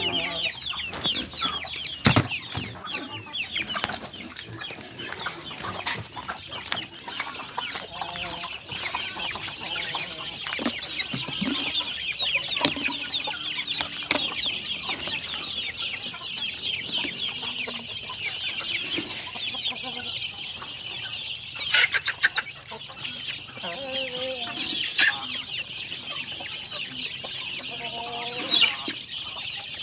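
Native hens clucking in short calls at feeding time, over a dense, unbroken high chirping in the background. A few sharp knocks come through, the loudest about two-thirds of the way in.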